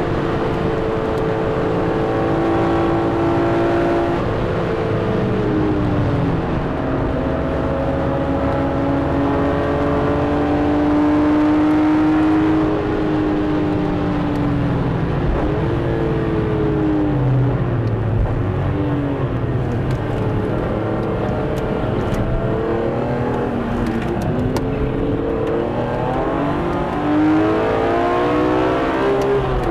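Car engine heard from inside the cabin while the car is driven hard on a race circuit, over steady road and tyre noise. Its pitch holds fairly steady for the first half. From about halfway it rises and drops several times as the driver brakes, changes gear and accelerates out of corners, and it climbs near the end.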